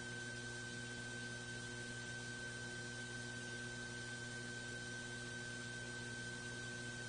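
Steady electrical hum and hiss with a thin high whine, unchanging, with no distinct events.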